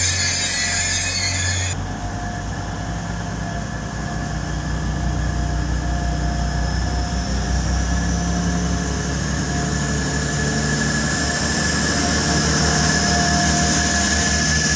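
A Class 180 diesel multiple unit moves along the platform under power, its engine rumble and a steady whine growing louder as it comes past. A loud hiss cuts off about two seconds in.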